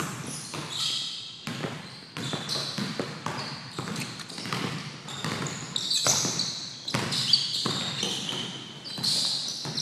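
A basketball bouncing and thudding irregularly on a gym floor, each hit echoing in the hall, with short high-pitched sneaker squeaks on the court in between.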